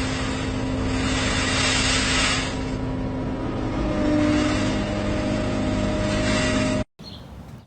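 Steady machine noise with a constant low hum, cutting off abruptly near the end.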